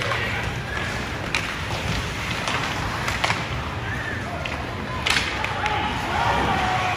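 Ice hockey play: sharp clacks of sticks and puck and knocks against the boards, a few seconds apart, over steady rink noise. The loudest knock comes about five seconds in.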